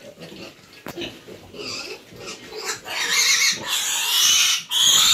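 Piglet squealing as it is caught and held by hand. The high-pitched cries start about a second and a half in and grow loud and continuous from about three seconds in.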